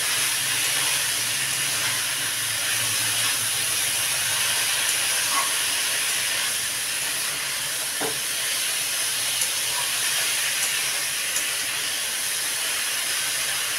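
Banana flower and potatoes frying in a steel kadai as a steady sizzling hiss while they are stirred, with a few light taps of the spatula against the pan.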